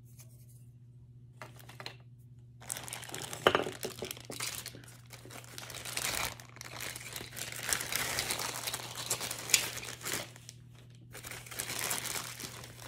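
Crinkling, rustling handling noise in long stretches after a quiet start, with a sharp click a few seconds in and another about three-quarters of the way through. A faint steady low hum runs underneath.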